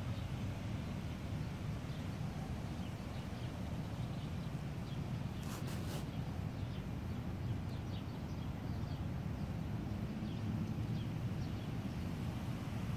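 Outdoor ambience: a steady low rumble with faint, scattered high chirps, and two short clicks about halfway through.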